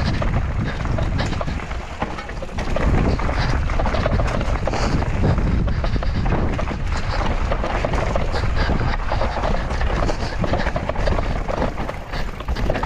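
Mountain bike running down a woodland dirt trail: tyres rolling over rough ground, the bike rattling constantly, wind on the microphone. The rider is breathing hard.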